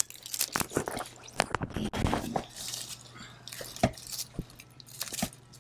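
Irregular clicks, taps and a short rustle from hands handling a clip-on LED plant light with a plastic stake and clip as it is set against a potted plant.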